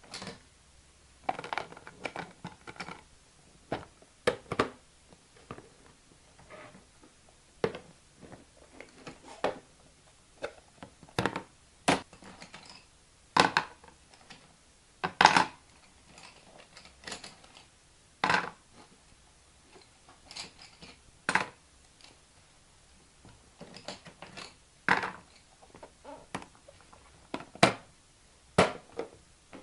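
Plastic cookie-cutter shapes, scissors and pencils clattering as they are handled and dropped into clear plastic storage boxes: irregular clicks and knocks of hard plastic on plastic, several a few seconds apart.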